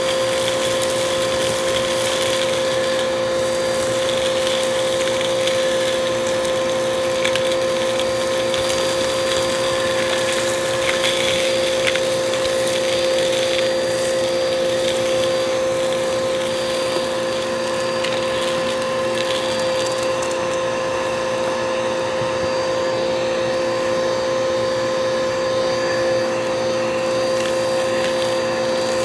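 Vacuum cleaner running steadily with a constant motor hum, with scattered crackles of dry debris being sucked up.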